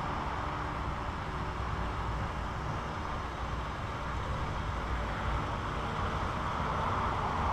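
Steady background rumble and hiss of outdoor ambient noise, even throughout, with no distinct knocks or clicks.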